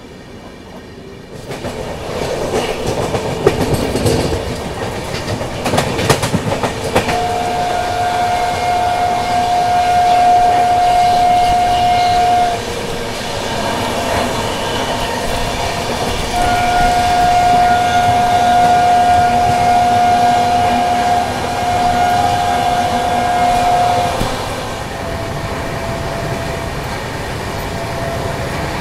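Rajdhani Express running at speed, wheels clattering over the rails. A train horn sounds two long, steady blasts about seven seconds in, the second one the longer.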